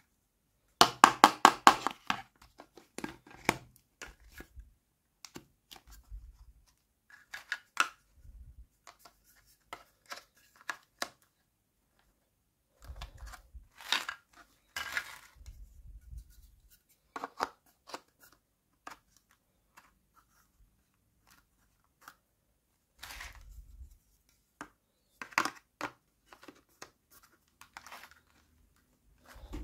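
Hard plastic toy-kitchen parts handled and fitted together: pink plastic legs pushed and clicked into sockets in a white plastic base, with scattered clicks, taps and short scrapes. A quick run of clicks about a second in is the loudest.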